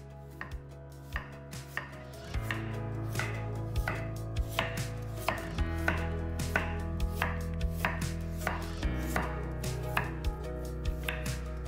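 Knife chopping food on a cutting board: sharp strokes, a few in the first two seconds, then a steady run of about three a second.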